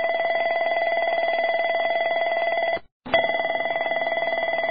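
Embraer EMB-145 aural warning unit sounding its fire bell, the cockpit alert for an engine 1, engine 2 or APU fire. It is a rapid electronic bell ringing that stops briefly about three seconds in, then rings again.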